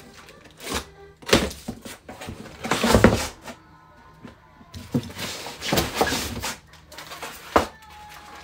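A large cardboard box being opened by hand: the flaps are pushed back and a foam packing insert is pulled out, giving several separate rustling knocks and scrapes of cardboard and foam.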